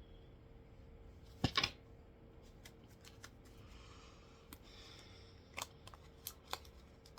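Tarot cards being handled: a quick cluster of sharp card snaps about one and a half seconds in, then scattered light flicks and taps, over a faint steady hum.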